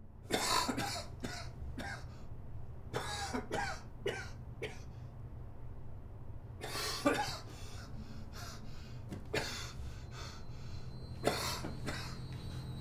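A person coughing in a series of irregular fits, with short harsh coughs spread through, over a steady low hum.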